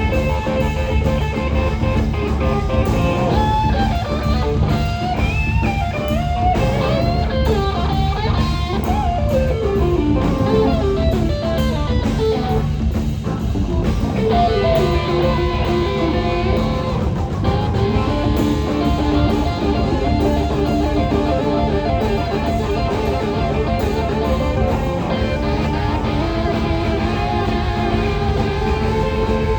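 Live blues-rock band playing loud and steady, with an electric guitar taking a lead line of gliding, bending notes over the drums and bass.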